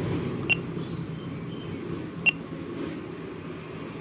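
Handheld EDC card terminal beeping as its keypad keys are pressed: two short, high key-press beeps a little under two seconds apart.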